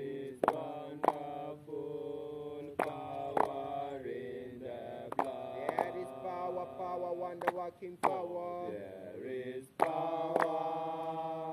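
Boboshanti Rastafari worshippers chanting slowly in long held, sliding notes. Sharp beats come in pairs, about every two seconds.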